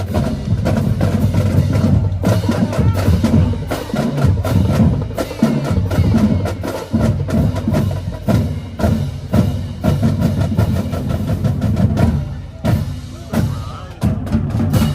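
Marching band drumline playing a fast, dense cadence of snare drums and bass drums, with sharp stick clicks; it thins out briefly near the end before a last few hits.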